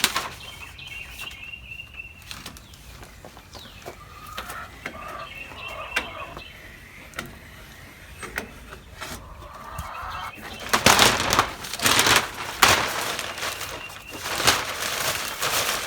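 Plastic sheeting on a chicken coop crackling and rustling in loud bursts about eleven seconds in, as it is handled and pulled down. Hens cluck softly earlier on.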